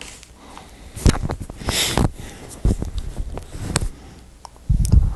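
Plastic Lego pieces being handled and sorted on a tabletop: scattered small clicks and rustles, with a dull thump near the end.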